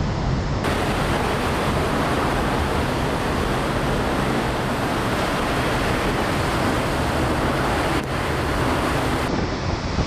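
Typhoon-force wind blowing hard, with wind-driven rain and spray: a loud, steady rushing noise with no let-up, and a brief break about eight seconds in.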